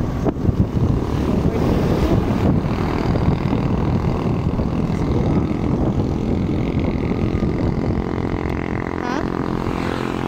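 Motor scooter riding along a road: heavy wind buffeting on the microphone over the engine's steady running. Near the end the wind eases and the engine's hum comes through more clearly.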